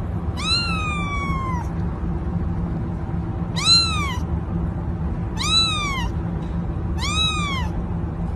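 Kitten meowing four times, high calls that rise and then fall in pitch, the first one the longest. A steady low hum runs underneath.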